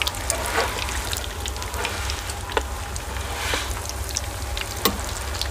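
Egg-coated chicken shami kebabs shallow-frying in hot oil in a pan: a steady sizzle and crackle with a few sharp spattering pops, the loudest near the end.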